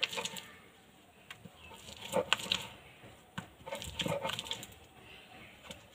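Stone roller (nora) grinding soaked urad dal into paste on a grinding slab (sheel), with irregular wet scraping and knocks of stone on stone, a few louder knocks around two and four seconds in.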